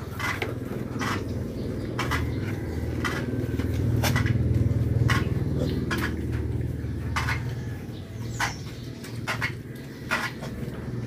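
Irregular light clinks and taps of a shallow metal water basin as piglets nose and drink from it. A low rumble swells about four seconds in and fades by seven.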